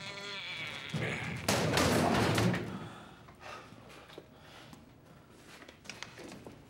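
Heavy desk banging and scraping against a door frame as men shove it, with a loud stretch about a second and a half in; the desk is wedged in the doorway and won't go through. A man's strained grunt at the start.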